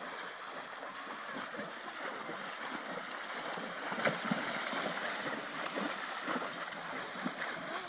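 Ponies wading and trotting through shallow water, their legs splashing steadily.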